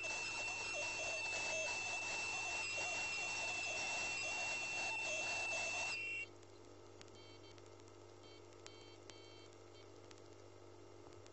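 PerioScan ultrasonic scaler working against a tooth root under water: a steady high-pitched tone over a hiss. About six seconds in both cut off suddenly, leaving a quieter low hum with a few faint beeps.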